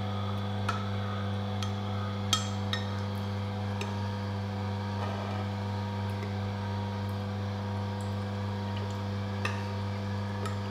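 Oscar DA1000 cold-press slow juicer running with a steady low hum as it presses a wet mash of ground Siamese cassia leaves. A spoon clinks against the glass jug and feed chute now and then, sharpest about two seconds in.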